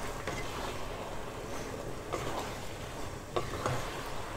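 Egg noodles and Chinese broccoli stems sizzling in a pan of dark soy sauce as it reduces, with a spatula stirring and scraping against the pan a few times.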